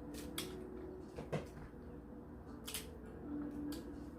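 Quiet eating of crab legs: a handful of short, soft clicks and smacks, scattered irregularly, from mouth and shell sounds.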